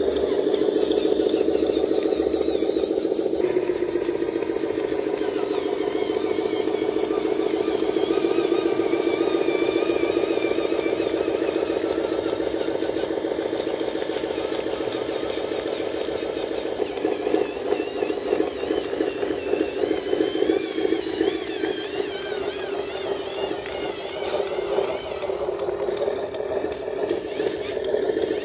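Radio-controlled model Hino 500 truck running as it drives, a steady engine-like drone with a higher whine that wavers in pitch. About seventeen seconds in, the sound turns rougher and more uneven.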